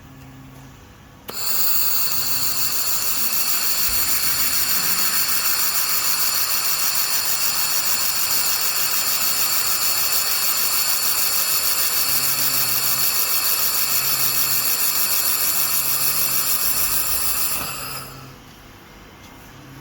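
1500 W air-cooled handheld fiber laser welder firing in pulsed spot-welding mode: a loud, high-pitched hiss with a steady whine and a fast, even pulsing. It starts suddenly about a second in and cuts off near the end.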